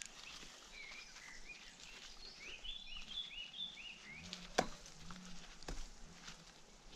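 A songbird singing a quick run of short chirping notes in the first half. Rustling of rope and dry leaves is being handled under it, with two sharp clicks later on.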